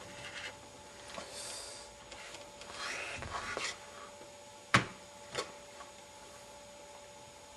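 Hands rubbing and handling a wooden test rig, then two sharp clicks, about two thirds of a second apart, a little past the middle, as a small metal tool is touched to the magnet assembly. A faint steady hum runs underneath.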